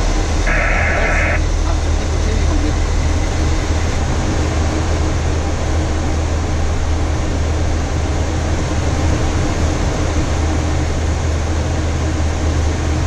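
Steady flight-deck noise of a Boeing 737-800 in flight: a constant low drone with an even rush of air over it. A short electronic tone sounds about half a second in.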